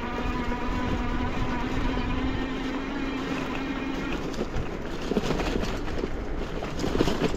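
Bicycle rolling fast down a forest trail: a steady humming drone for about the first four seconds, then rattling and knocking as it runs over rougher ground.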